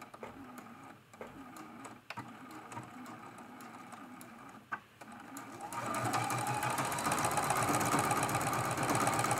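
Sewing machine sewing a straight stitch: a few slow, separate stitch clicks in the first half as a short backstitch locks the seam, then just past halfway it speeds up into steady, even, fast stitching.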